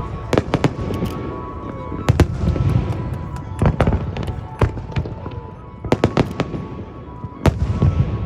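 Fireworks display: many sharp bangs and crackles from bursting aerial shells in quick, irregular succession, with music playing underneath.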